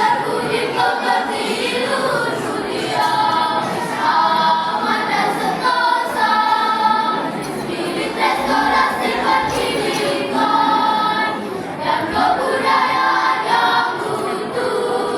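Primary-school children's choir singing a song, with sustained notes that change pitch every second or so.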